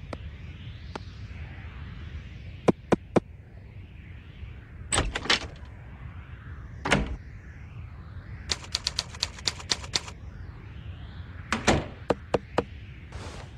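Cartoon sound effects of sharp clicks and knocks. Three quick clicks come a few seconds in and two short bursts follow, then a fast run of clicks at about seven a second, with another cluster of clicks near the end, over a faint steady hiss.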